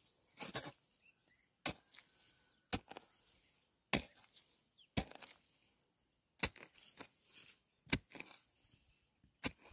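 Hoe blade striking and chopping into soil in a planting hole, about eight blows roughly a second apart, mixing manure into the earth.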